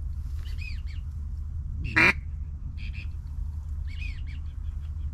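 Short nasal duck quacks over a steady low rumble. Several faint quacks are scattered through the moment, and a much louder, closer one comes about two seconds in.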